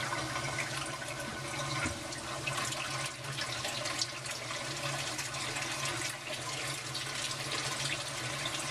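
Water trickling and splashing steadily as it drains off an algae turf scrubber screen tipped to one side in its box, over a steady low hum.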